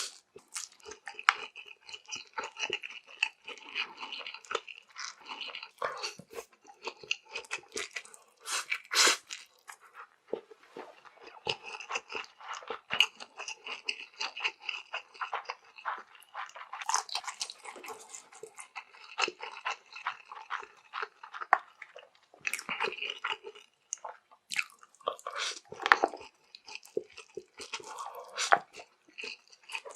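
Close-miked chewing and wet mouth sounds of a person eating noodles, a dense, irregular run of sharp clicks.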